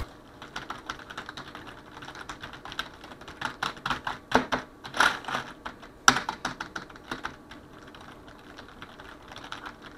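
Fast, hard typing on a stock HP desktop membrane keyboard: a dense patter of soft key clicks, with a few louder strikes around the middle and lighter typing toward the end.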